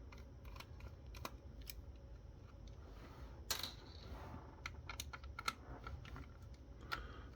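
Faint clicks and light taps of the keypad's plastic case parts and circuit board being handled, with one louder, short scrape about three and a half seconds in, over a steady low hum.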